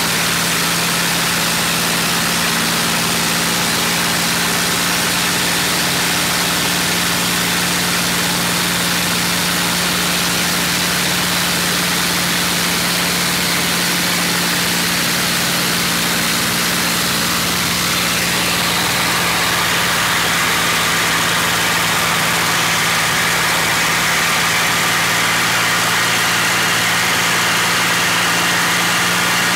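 P-51D Mustang's Packard Merlin V-12 engine running steadily in flight, heard from inside the cockpit together with the rush of air over the canopy. The higher rushing sound gets brighter and slightly louder about two-thirds of the way through.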